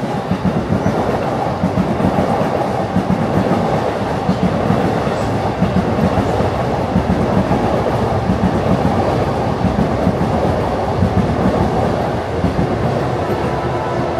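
A train running, with wheels clattering rhythmically over the rail joints under a steady rumble.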